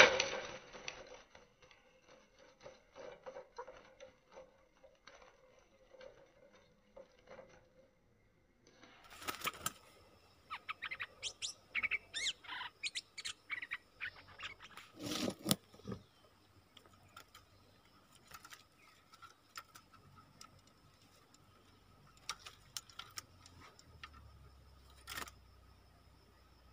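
Bulbul chirps and calls, slowed down for the first several seconds, then at normal speed from about nine seconds in, mixed with scattered clicks and knocks, including a louder knock about fifteen seconds in.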